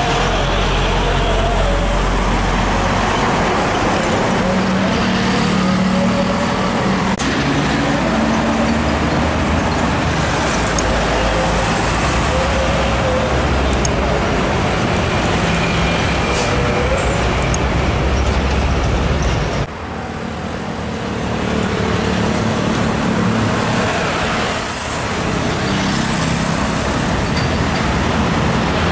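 Heavy diesel trucks driving past one after another in road traffic, their engines rising and falling in pitch as they pull through. The sound drops suddenly about twenty seconds in, then builds again as the next truck approaches.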